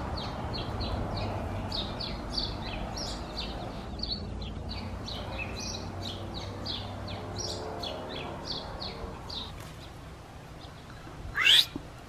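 A small bird chirping rapidly and repeatedly, two or three short high chirps a second, which stop about two and a half seconds before the end. About a second before the end comes one loud, sharp, rising squeal.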